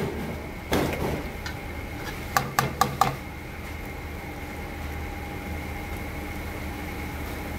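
Metal spoon scraping through thick seasoning paste in a frying pan about a second in, then four or five quick clinks of the spoon against the pan a little before the middle. After that only a steady low hum with a faint high whine.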